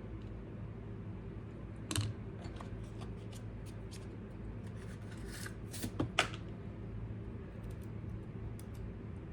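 Small tools and RC crawler parts being handled on a workbench: scattered light clicks and rattles, sharpest about two seconds in and again around six seconds in, over a steady low hum.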